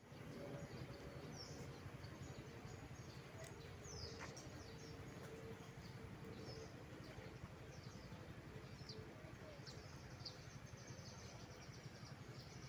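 Faint outdoor ambience: a steady low rumble with many short, high bird chirps scattered through it.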